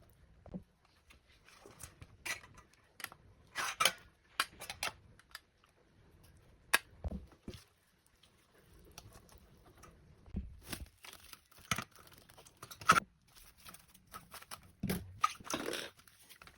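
Irregular clicks, taps and short rustles of objects being handled, loudest a few seconds in, near the middle and near the end.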